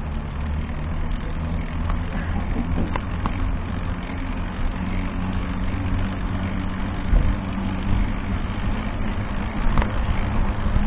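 Vehicle engine running steadily with a low hum over road noise, heard from a camera on board the moving vehicle.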